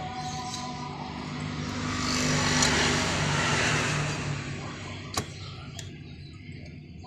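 Car engine running. It swells in revs for a second or two, then drops back and fades, with one sharp click about five seconds in.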